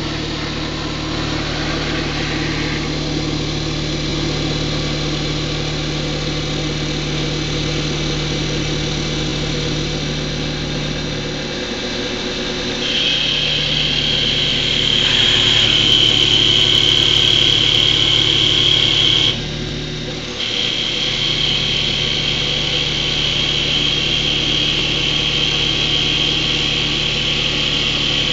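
MotionCat TC650E CNC wood lathe running and turning a wooden spindle, a steady motor hum throughout. About halfway through a louder high whine joins as the cutter shapes the wood; it breaks off for about a second and then comes back.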